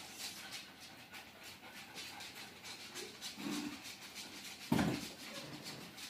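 Small dog panting in quick, even breaths, with one brief loud sound about three-quarters of the way through.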